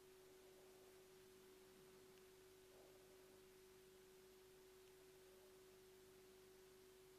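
Near silence: faint room tone with a steady, unchanging hum at one pitch.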